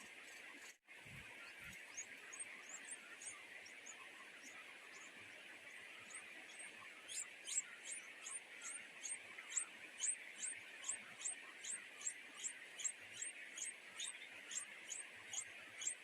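Nestling songbirds giving short, high chirps in a rapid series, about three a second, from midway on: begging calls for food. Under them, a steady high hiss.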